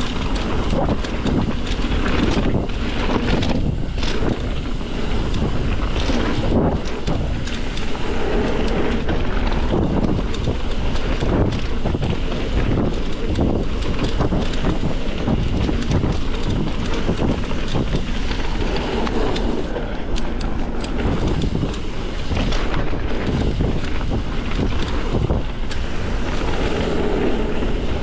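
Wind buffeting the microphone of a camera on a mountain bike descending a dirt singletrack, with tyre noise and frequent knocks and rattles from the bike over bumps.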